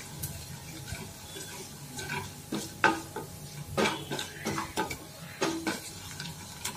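Wooden spatula stirring mustard seeds, cumin and urad dal in hot oil in a nonstick pan, scraping and knocking against the pan several times over a faint sizzle of the frying seeds.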